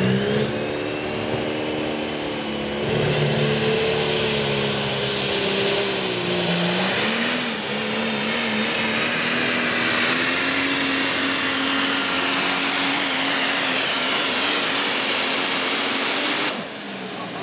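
Cummins diesel pulling truck running flat out as it drags a pulling sled, with a high turbo whistle climbing in pitch over the first several seconds. The engine is let off sharply near the end.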